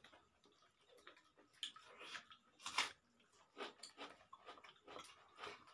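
Quiet eating sounds from people eating rice by hand: scattered soft clicks and smacks of chewing and fingers on metal plates, loudest about three seconds in.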